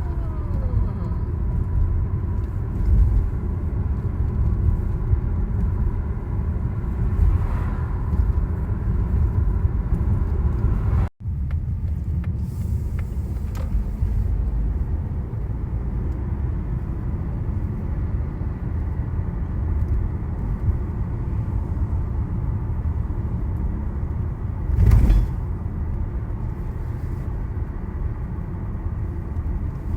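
Car road and engine noise heard from inside the cabin while driving, a steady low rumble. The sound drops out for an instant about eleven seconds in, and a short louder bump comes about 25 seconds in.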